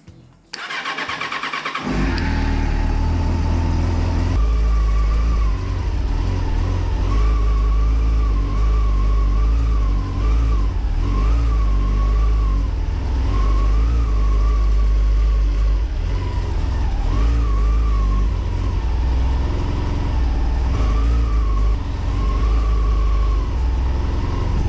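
Yamaha FZ6's inline-four motorcycle engine cranked by the electric starter, catching about two seconds in, then running unevenly with the revs rising and falling and several brief dips. The engine is cutting out after sitting all winter, which the owner puts down to a flat battery or stale winter petrol, perhaps the spark plugs.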